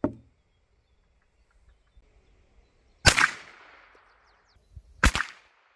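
A .22 LR cartridge set off outside a gun barrel in an open holder, going off as a sharp crack with a short echoing tail; two such cracks come about two seconds apart, the second preceded by a faint click. A short knock sounds at the very start.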